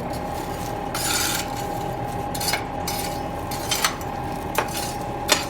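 Electric blower on a coal forge running, a steady rush of air into the fire with a thin steady whine, and a few sharp clicks or cracks in the second half.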